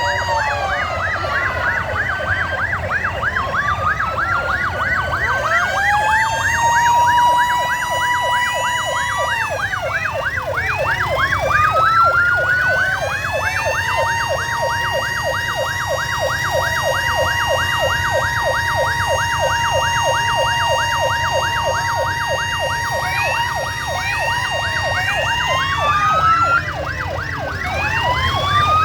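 Several police vehicle sirens sounding at once: wails that rise and hold steady, overlapping a fast yelp, over a low engine rumble.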